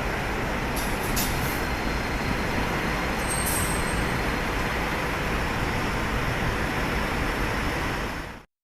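Steady rumble of passing vehicles at a street level crossing, with a few short hisses about a second in; the sound cuts off abruptly near the end.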